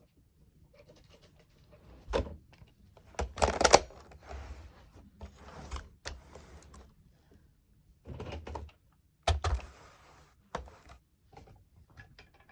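Plastic clacks, knocks and rattles of toy Nerf blasters being handled and reloaded with foam darts. A few separate knocks, the loudest cluster about three and a half seconds in and another about nine seconds in.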